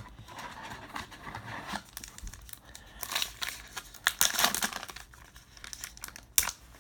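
Baseball card pack wrapper crinkling and tearing as it is opened, in uneven bursts, with a sharp click near the end.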